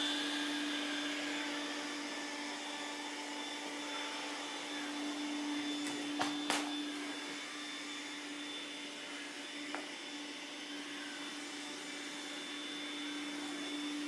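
iRobot Roomba S9+ robot vacuum running with a steady hum while a long shoelace is caught in it and it tries to shake it loose. Two sharp knocks a little past six seconds in and a small click near ten seconds.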